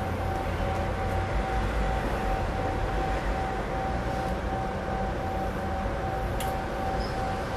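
Steady low rumble with a constant high-pitched hum running through it, and one sharp click about six seconds in.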